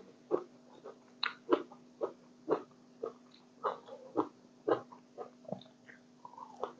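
Close-up chewing of grilled Isan sausage, wet mouth smacks about twice a second.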